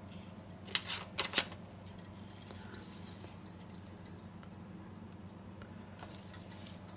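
Three or four short, sharp scrapes and rustles about a second in, as a paper wipe is rubbed around a picture tube's new base to clear off excess silicone sealant. A steady low hum runs underneath.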